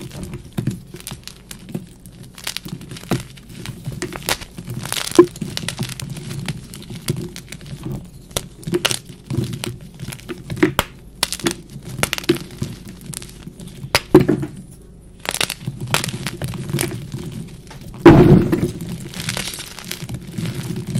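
NEXO gym chalk blocks crushed and crumbled by hand in a heap of chalk powder and broken chunks: a run of sharp snaps and crackles, with a longer, louder crunch near the end.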